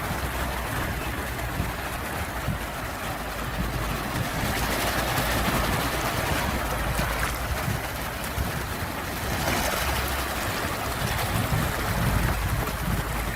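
Sea waves washing in and drawing back, the surf swelling twice, about four and a half and nine and a half seconds in, over a low rumble of the sea.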